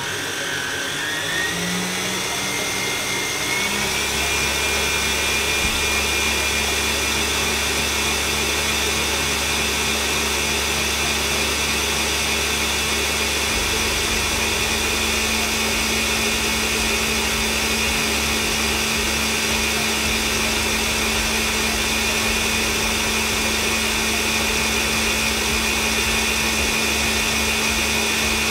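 Electric mixer whipping cream. Its motor whine rises as it speeds up over the first few seconds, then runs steadily.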